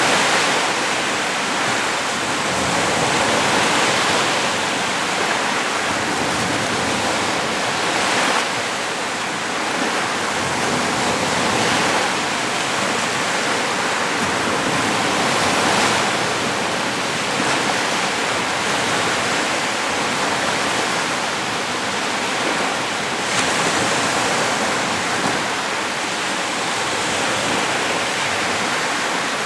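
Lake Huron waves breaking and washing onto the beach: a continuous rush of surf that swells and eases every few seconds.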